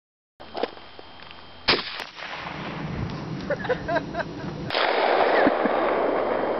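A single loud shotgun shot about a second and a half in, with a short ringing tail, over outdoor background noise.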